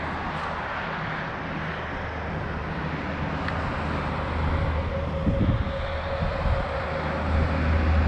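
Highway traffic passing: a steady rush of tyre and engine noise, with a low rumble building in the last few seconds.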